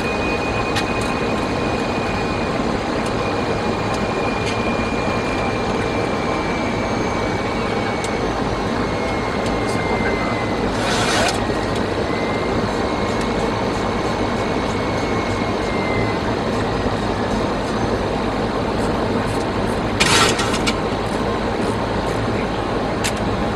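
Steady aircraft cockpit noise of engines and rushing air, with a thin high whine that slowly falls in pitch. Two short bursts of hiss break in, about eleven and twenty seconds in.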